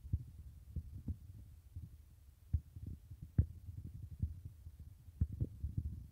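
Low, irregular thumps and rumble of handling noise on the camera's microphone, with a few sharper knocks about two and a half, three and a half and five seconds in.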